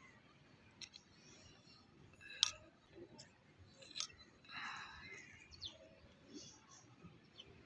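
Faint clicks and light scraping of a small metal spoon against miniature clay pots as rice is served, with one sharper click about two and a half seconds in.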